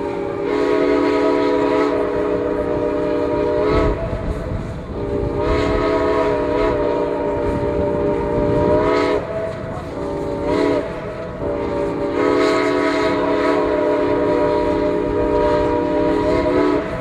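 Steam locomotive's chime whistle, several notes at once, blown in four blasts: long, long, short, long, the pattern of a grade-crossing signal. A steady rumble of the moving train runs underneath.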